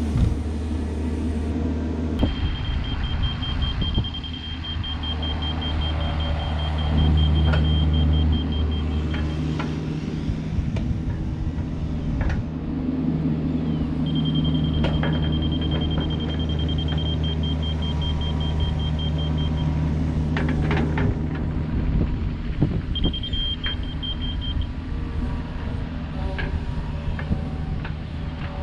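Diesel engine of a compact excavator or track loader running steadily, with a high, rapidly pulsing backup alarm beeping in three spells: a long run starting about two seconds in, another in the middle, and a short one near the end. A few knocks sound about two-thirds of the way through.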